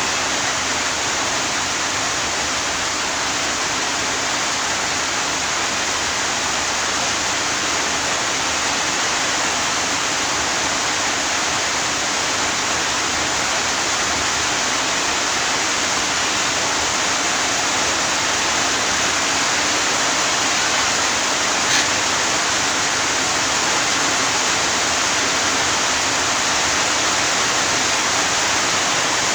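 A steady, even hiss with no rhythm or change, and one short click about three-quarters of the way through.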